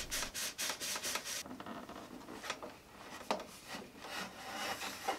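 Metal wing tube rubbing and scraping in the wooden centre wing box of a large model airplane as it is worked in and out, in quick repeated strokes, about five a second, that stop about a second and a half in. A few separate rubs and knocks follow as the wing is handled.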